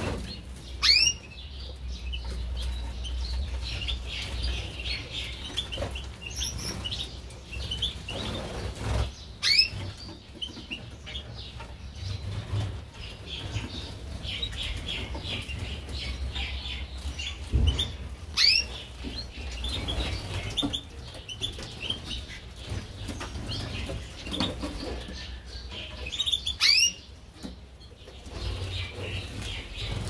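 A mixed flock of canaries and small finches in an aviary, chirping and twittering without pause, with wings fluttering. A loud sweeping call rings out about every nine seconds, four times in all.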